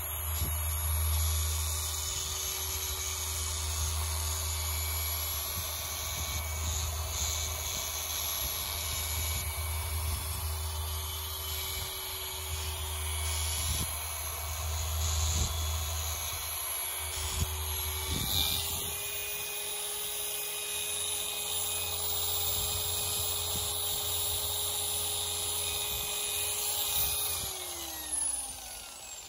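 Rupes LHR12E random orbital polisher with a small 80 mm pad running steadily on car paint, a steady motor whine over a low rumble. Its pitch steps up slightly partway through. Near the end it is switched off and winds down with a falling pitch.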